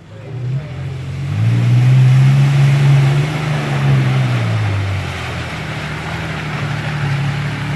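Toyota Tacoma pickup's engine revving up as it pushes through a muddy rut, held high for about three seconds and then easing off to a lower steady run, with tyres churning through mud and water.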